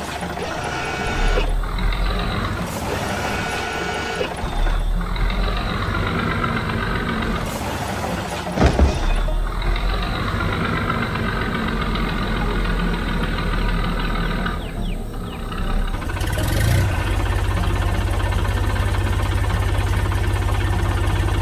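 Cartoon sound effect of a heavy work vehicle's diesel engine running steadily under background music, with a single loud clunk about nine seconds in.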